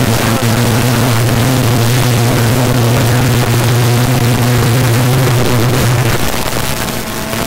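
Rally car's engine heard from inside the cabin, held at steady high revs under full throttle, over constant tyre and stone noise from the gravel road. About six seconds in, the driver lifts off and the engine note drops away.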